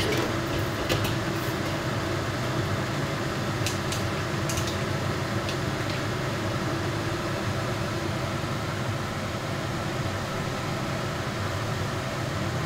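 Steady whirring hum of a kitchen fan with a gas burner going under a wok of heating oil, with a few light metallic clicks about a second in and again around four seconds in as the wok is moved on the burner grate.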